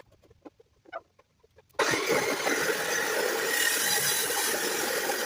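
A few faint clicks and knocks, then about two seconds in a chop saw starts cutting heavy quarter-inch-wall steel bar, a loud steady grinding hiss.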